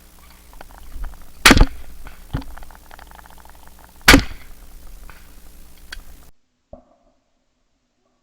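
Two shotgun shots at clay targets, about two and a half seconds apart, with fainter sharp pops in between. The sound cuts off abruptly about six seconds in.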